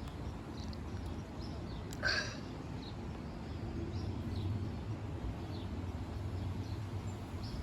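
Low, steady rumble of an airplane passing overhead, growing louder about halfway through, a sound mistaken at first for distant thunder. A short bird call cuts in about two seconds in, with faint chirps scattered over the rumble.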